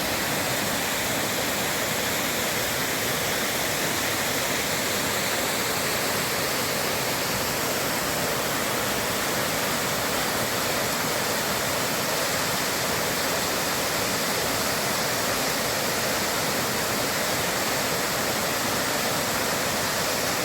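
Rushing creek water: a steady, even hiss that does not change.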